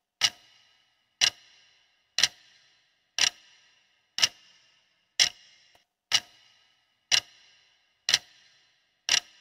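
Clock-tick sound effect counting down a quiz timer: one sharp tick every second, ten in all, each with a short ringing tail.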